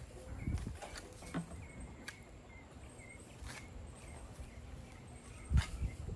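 Backyard chickens making short, repeated calls. There are sharp clicks throughout and dull thumps about half a second in and, loudest, about five and a half seconds in.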